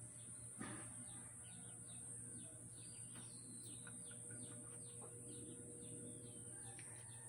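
Faint background birdsong: many short, quick chirps repeating, with one light knock about half a second in.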